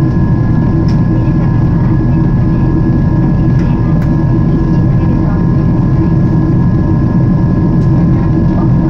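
Steady cabin roar of a Japan Airlines Boeing 777-300 airliner in flight: engine and airflow noise heard from inside the cabin, deep and even, with a faint steady hum riding on top.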